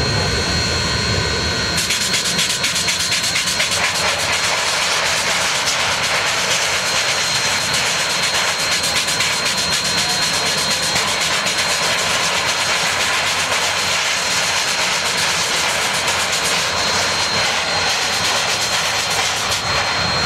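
Union Pacific 844 steam locomotive standing with steam venting in a loud, steady hiss that starts abruptly about two seconds in, over a steady high whine.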